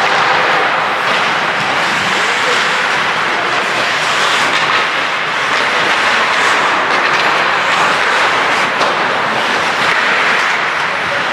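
Ice hockey play: a steady scraping rush of skate blades on ice, with scattered short clacks of sticks and puck.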